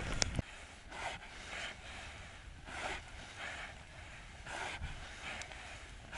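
A man breathing close to the microphone, soft breaths coming every second or so, with a brief knock of handling right at the start.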